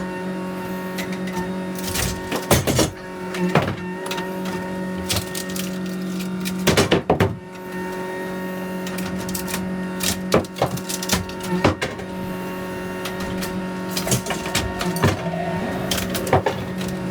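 Excavator engine running steadily with a hydraulic hum, broken by irregular knocks and crashes of demolition debris. The biggest bangs come about two and a half, seven and eleven seconds in.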